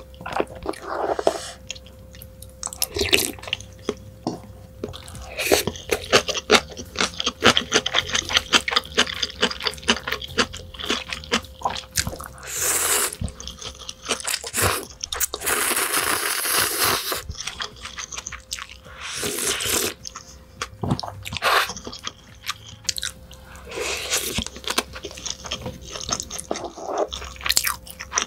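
Close-miked mukbang eating: wet chewing, smacking and crunching of spicy ramen and crab, with several long loud noodle slurps, the longest about halfway through.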